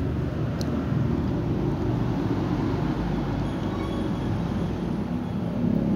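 Steady low rumbling background noise, with one faint click about half a second in.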